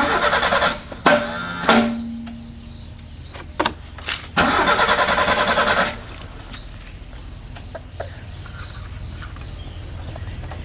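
Three loud bursts of mechanical noise, the first two short and about a second apart, the last about a second and a half long, with a low steady hum after the second.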